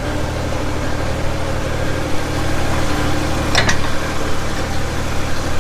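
Engine of a loader fitted with pallet forks running steadily, with one short metallic clank about three and a half seconds in.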